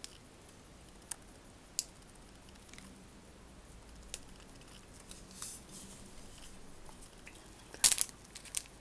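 Clear plastic bag holding a model kit's decal sheet and clear parts being handled: a few faint ticks and some soft rustling, then a loud crinkle near the end.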